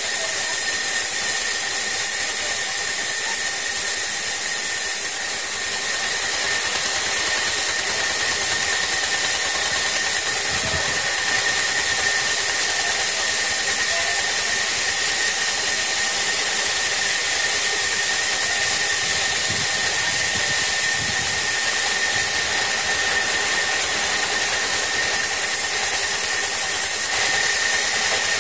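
Horizontal band sawmill running steadily: a constant high hiss with a steady thin whistle-like tone over it, with no change in load.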